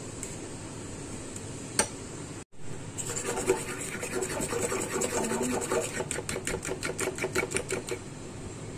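A fork whisking egg and sugar in a bowl: fast, even strokes scraping and tapping against the bowl, about seven a second, starting about three seconds in after a brief drop-out.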